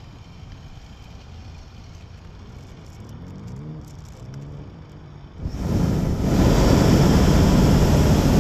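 Hot air balloon's propane burner firing overhead: a loud, steady blast that starts suddenly about five and a half seconds in and keeps going. Before it, only faint wind and background.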